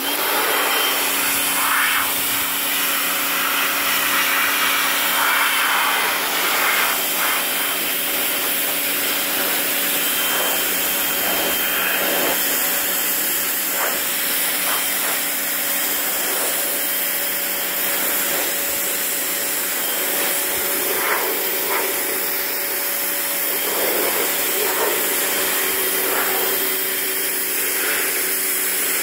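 Small electric pressure washer running, a steady motor-pump hum under the hiss of its water jet spraying a rusty steel grille panel. It starts up abruptly and runs without a break.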